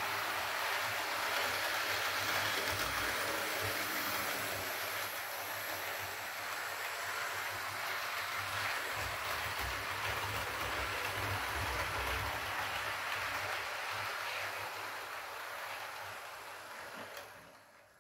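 Model four-car Class 312 EMU running on its track: a steady rumbling hiss of the motor and wheels on the rails, with a low hum. It fades about 16 seconds in and drops away sharply near the end as the train stops.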